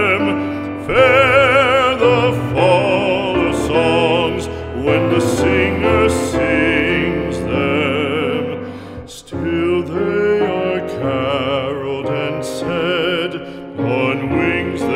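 Background music: an operatic voice singing long notes with heavy vibrato over sustained accompaniment, with a brief break about nine seconds in.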